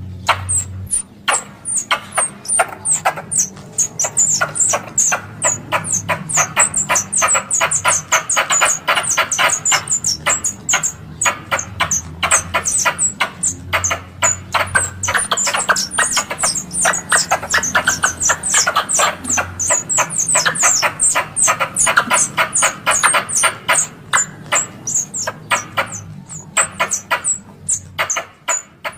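Squirrel chattering: rapid, sharp chips repeated several times a second, played as a calling lure to draw squirrels in. The chips thicken in the middle and thin out near the end.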